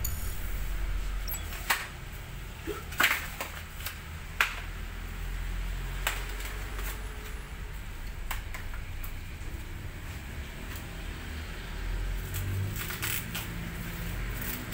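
Protective plastic wrapping and tape being pulled and cut off a bicycle frame by hand: scattered crinkles and sharp clicks, the loudest about three and four and a half seconds in and a quick cluster near the end, over a steady low rumble.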